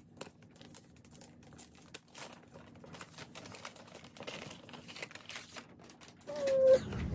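Wrapping paper crinkling and rustling as hands peel it off a cardboard gift box, in quick small crackles that get busier partway through. Near the end comes a brief, louder pitched tone, then a low thud-like rumble as the box is handled.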